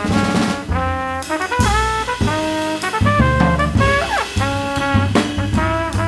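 Jazz trio of trumpet, double bass and drums playing. The trumpet plays a line of short held notes with slides between some of them, over low double bass notes and drum strokes.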